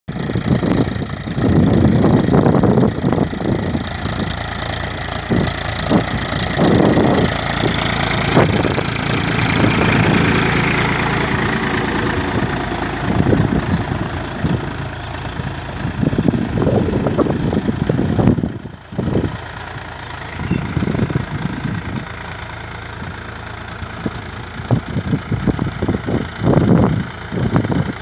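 Powertrac Euro 50 tractor's three-cylinder diesel engine running steadily under load as it pulls a tine cultivator through dry soil. The level dips briefly about two-thirds of the way through.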